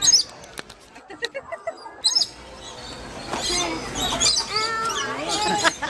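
Lorikeets chirping and screeching in short, high calls, with the loudest chirps right at the start and again about two seconds in.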